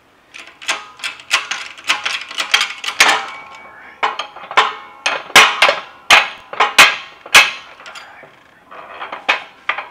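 Hand-pumped hydraulic shop press pressing the output center bearing off a T50 transmission output shaft held in a bearing splitter: a run of metallic clicks and clanks, then four loud sharp metal knocks less than a second apart around the middle as the shaft is knocked down through the bearing.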